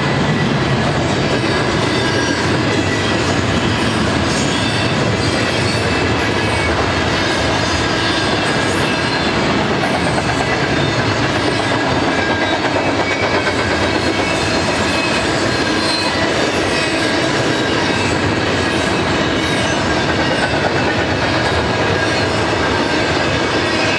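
BNSF intermodal freight train of double-stack and trailer cars rolling past: a steady, unbroken rumble of wheels on rail, with thin high-pitched tones over it.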